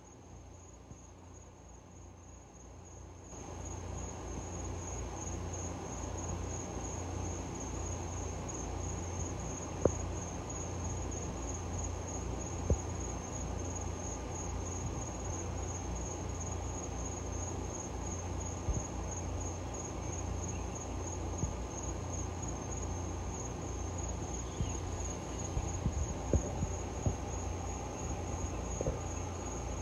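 Crickets chirping in a steady, evenly pulsing high trill, with a low steady hum coming up about three seconds in and a few faint clicks.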